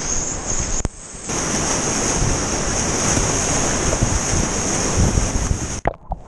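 Whitewater rapids rushing and splashing around a kayak, with spray and wind buffeting the camera's microphone. The noise drops out briefly about a second in and again near the end.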